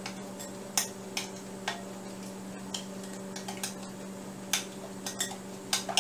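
A spoon clinking against a glass mixing bowl while stirring a liquid marinade, in irregular taps about one or two a second.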